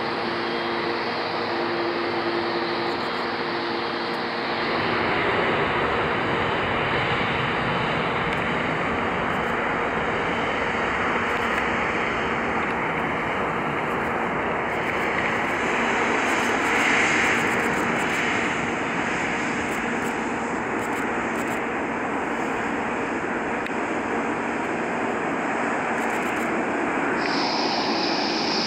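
Boeing 777-300ER's twin GE90 turbofans running at taxi power as the airliner rolls past: a steady jet roar that carries a few steady tones in the first four seconds, then fills out and stays steady.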